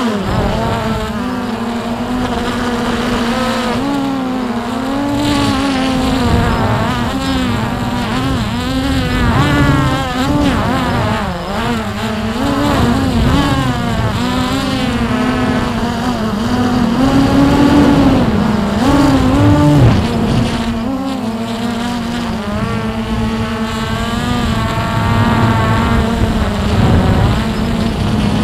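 Hubsan X4 Pro H109S quadcopter's four motors and propellers whining, picked up by its onboard camera, with the pitch wavering up and down continuously as the motor speeds change. The quadcopter is caught in toilet bowl effect, circling out of control.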